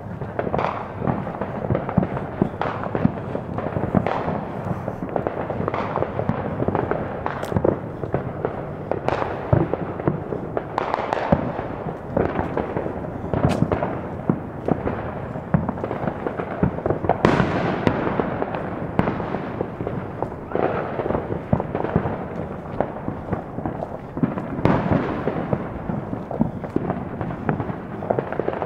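Consumer fireworks and firecrackers going off all around the neighborhood: a dense, continuous barrage of overlapping bangs, pops and crackles with no real pause, many of the bangs echoing.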